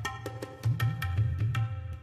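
Tabla played in a quick rhythm: sharp, ringing strokes on the treble drum over deep, swelling bass from the bass drum.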